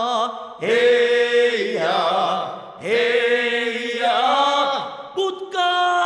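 Chanted vocals in the style of a Korean funeral bier song (sangyeo-sori), the refrain "heya" sung twice, each phrase scooping up in pitch at its start.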